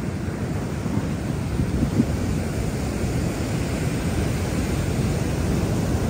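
Wind rumbling on the microphone over the steady wash of ocean surf breaking on the beach.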